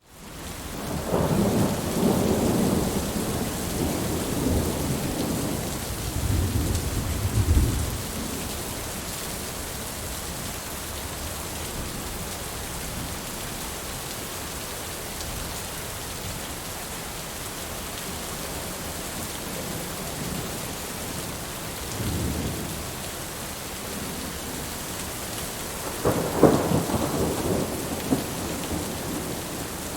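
Heavy rain falling steadily, with rolling thunder: a long rumble through the first several seconds, a softer one a little past the middle, and a sharper crack-and-rumble near the end.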